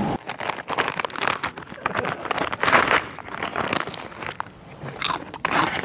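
A chip bag crinkling loudly as it is handled, in irregular crackly bursts.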